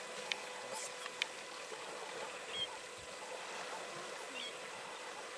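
Water sloshing and splashing as African elephants wade and drink in a waterhole, with two short sharp clicks in the first second or so and a few faint short chirps later.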